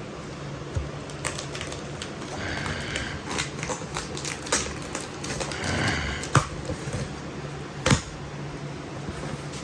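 A shipping package being opened and its contents handled: scattered rustles and clicks, with two sharper knocks about six and eight seconds in, over a low steady hum.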